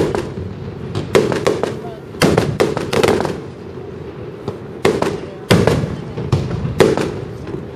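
Aerial fireworks shells bursting overhead: a string of loud, sharp bangs and crackles, coming in clusters every second or two.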